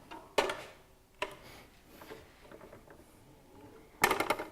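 Mechanical clunks and clicks from a sliding mitre saw being handled by hand, its safety guard released and its head moved, with the motor not running. Two sharp knocks early on, scattered light clicks, then a short rattling clatter of metal and plastic parts near the end.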